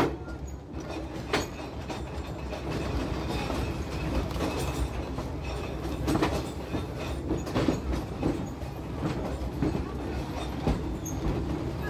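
Narrow-gauge railroad car rolling along the track, heard from aboard: a steady low rumble with irregular sharp clicks as the wheels pass over rail joints.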